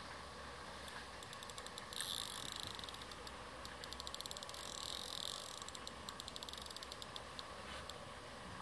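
Fishing reel ticking rapidly while a hooked fish is played on a bent rod. The fast clicking starts about a second in, is thickest in the middle and thins out near the end.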